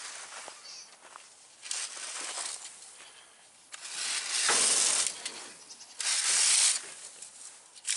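Several short bursts of hissing, rustling noise with no pitch to them; the two loudest come about four and six seconds in, each lasting under a second.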